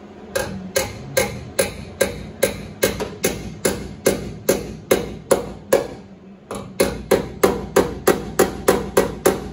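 Body hammer striking the welded-in sheet-steel rocker patch on a 1969 GMC truck in a steady run of about two and a half blows a second, each with a short ring, pausing briefly about six seconds in before carrying on. The blows are knocking down high spots where the patch sticks out, working it flush.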